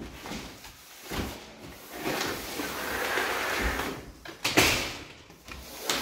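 A heavy cardboard box and the front door knocking and scraping as the box is carried in and set down on a wooden floor, with a rushing scrape in the middle and the loudest sharp knock about four and a half seconds in.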